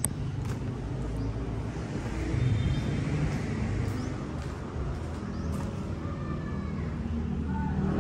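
Steady low rumble of outdoor background noise, with a few faint high chirps.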